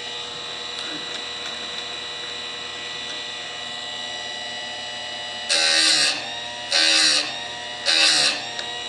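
Chicago Electric (Harbor Freight) electric chainsaw sharpener's motor running with a steady whine. Near the end come three short grinding passes about a second apart, as the abrasive wheel is brought down onto the chain's cutter teeth.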